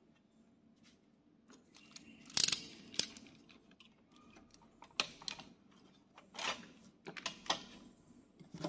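Scattered clicks and light knocks from hands working on an opened inverter welding machine, loudest twice about two and a half and three seconds in.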